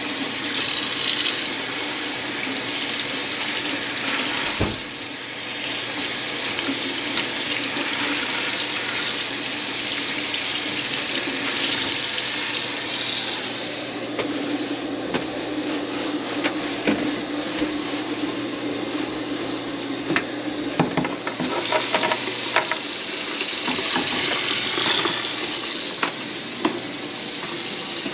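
Water running from a faucet into a kitchen sink, a steady rush with a faint low hum beneath it that stops a few seconds before the end.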